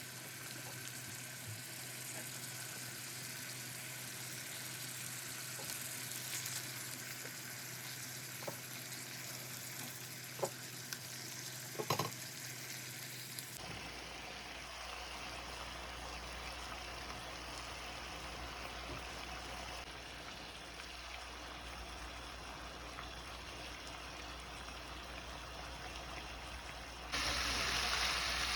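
Pork sizzling steadily as it fries in a pan, with a few sharp clicks about ten to twelve seconds in. The sound changes abruptly about halfway through and gets louder near the end.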